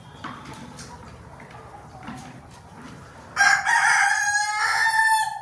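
Rooster crowing once: a single loud call of about two seconds starting some three seconds in, over faint clucking of chickens.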